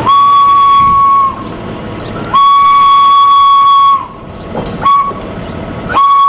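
Steam locomotive whistle blowing at one steady pitch: a long blast at the start, a longer one about two and a half seconds in, a short toot, and another long blast starting near the end. Steam hiss and train running noise fill the gaps between the blasts.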